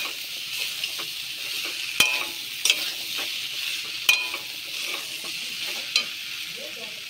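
Boiled chickpeas and potato pieces sizzling in hot oil and spices in an aluminium kadai as they are stirred with a metal spatula. They are being sautéed (kosha). Four sharp metallic clangs ring out as the spatula strikes the pan.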